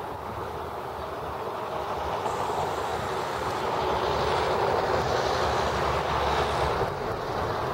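A heavy road vehicle passing over the bridge: a rumbling drone that swells over a few seconds and drops away near the end.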